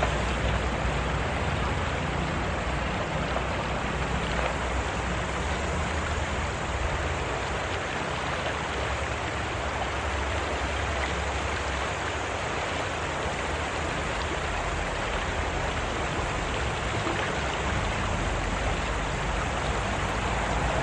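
Steady rushing noise of water, even and unbroken throughout.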